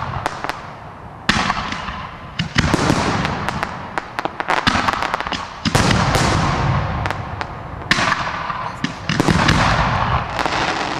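Aerial fireworks shells bursting one after another, about five big bangs, each followed by crackling that fades away, with many sharp cracks in between.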